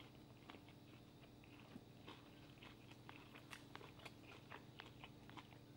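Faint crunching and chewing of a mouthful of crispy Southern fried chicken: a string of soft irregular crackles from the fried crust, over a low steady room hum.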